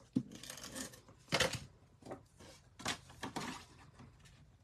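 Cardstock being handled and slid into place on a cutting mat: several short paper rustles and scrapes, the loudest about a second and a half in.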